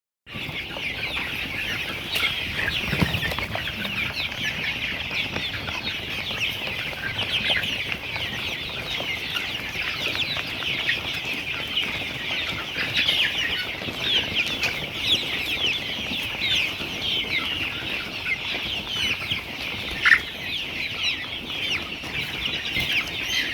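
A large flock of young laying hens, about eight weeks old, chirping and clucking continuously, many high, short calls overlapping. One brief, louder knock sounds near the end.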